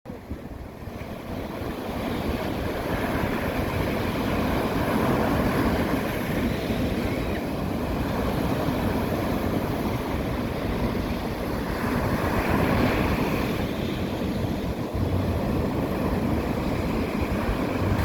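Sea surf breaking and washing up on the beach: a steady rush that swells twice, with a low wind rumble on the microphone. It fades in over the first two seconds.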